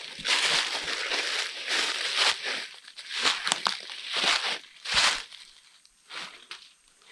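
Footsteps crunching through dry fallen leaves, a crunch about every half second to a second, growing sparser and quieter near the end.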